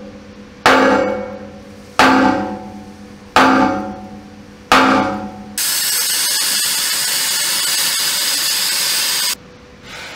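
Four hammer blows on steel armour plate, about one every second and a half, each ringing out. About halfway through, a gas cutting torch starts a steady, loud hiss that stops abruptly near the end.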